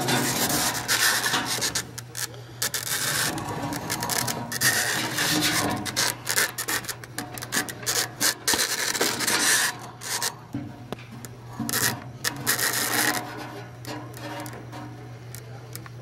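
Irregular rubbing and scraping of an inspection camera's cable being worked through a furnace's metal heat exchanger tubes, over a steady low hum.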